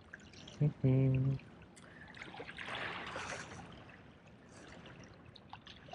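Sea water washing and trickling among jetty rocks, a soft swell that rises and eases off around the middle.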